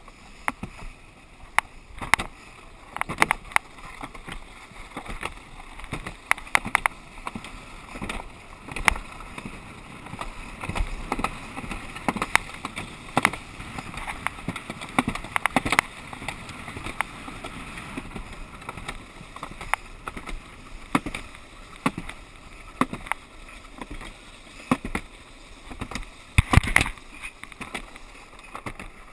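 Alpine-slide sled running down the slide track: a steady rumbling scrape with frequent irregular sharp knocks and rattles as it rides the trough.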